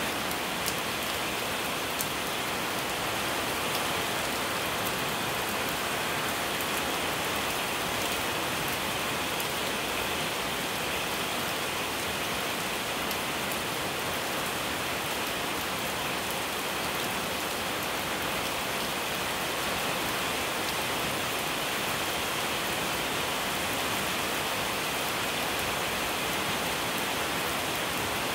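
Steady rain falling on wet paving and leafy trees, an even hiss with a few sharper drop ticks near the start.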